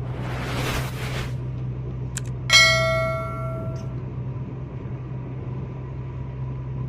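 Steady drone of a car running on a highway, heard from inside the cabin, with a short rushing hiss near the start. About two and a half seconds in, a sudden metallic ringing strike fades away over about a second; it is the loudest sound.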